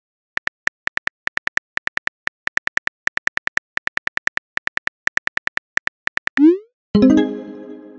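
Rapid keyboard tap clicks from a texting app as a message is typed, about five a second. Then a short rising swoosh as the message is sent, and a synthesized chime that rings out and fades near the end.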